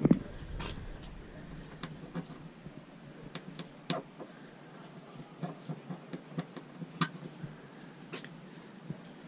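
Handheld camera handling noise: a thump right at the start, then scattered light clicks and taps over a faint low background hum.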